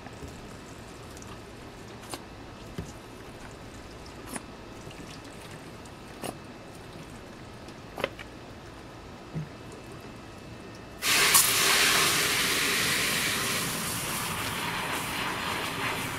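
Low background with a few faint clicks, then about eleven seconds in a garden hose opens with a sudden loud, steady hiss of water spraying into a plastic bucket of dish soap, filling it and foaming it up.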